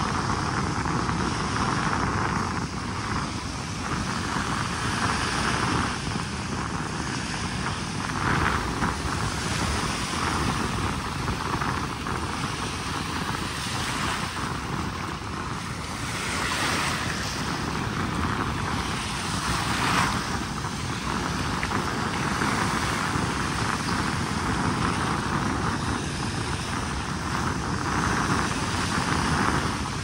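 Small surf breaking and washing up the sand at the water's edge, swelling and easing every few seconds, with wind buffeting the microphone.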